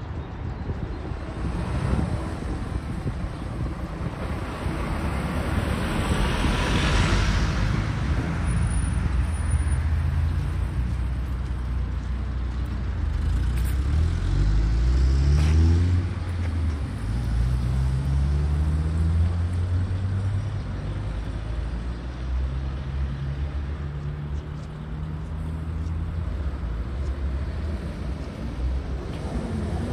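City street traffic: cars driving past, and engines rising in pitch as vehicles pull away and accelerate, loudest about halfway through.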